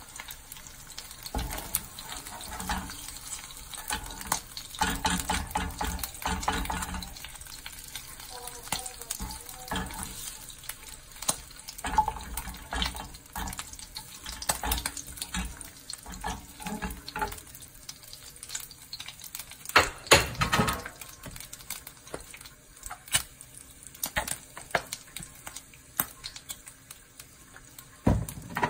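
Hot oil crackling and sizzling in a nonstick frying pan, with a nylon spatula scraping and tapping the pan as leftover bits of fried egg are pushed around. A few louder knocks come about two-thirds of the way through.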